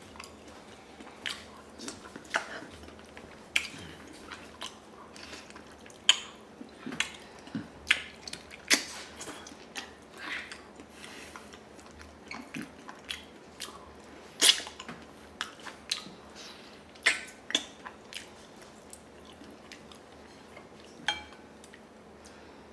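Close-up mouth sounds of eating braised pig feet: chewing and lip smacks, an irregular run of short sharp clicks with pauses between.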